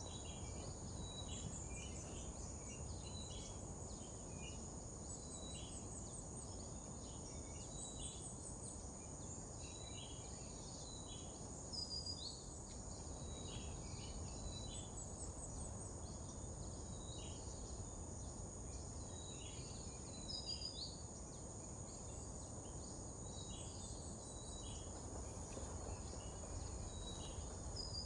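Rural field ambience: insects keep up a steady high-pitched drone while birds give frequent short chirps and whistles, over a low steady rumble.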